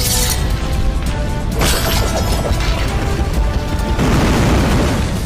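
Anime-style sound-effects mix: booming, crashing hits laid over music, with sudden bright bursts right at the start and about a second and a half in, and a loud rush of noise over the last second.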